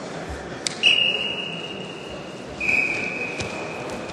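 Referee's whistle blown in two long, steady, high blasts, the first about a second in and the second just under three seconds in, over the background noise of the hall. It is the signal for the wrestling bout to start.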